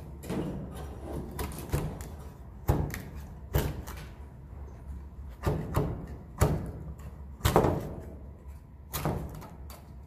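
A long-handled swiftlet-nest scraper with a net bag knocking and scraping against wooden nesting planks as nests are pried off. There are about nine irregular knocks, the loudest about two and a half, three and a half and seven and a half seconds in.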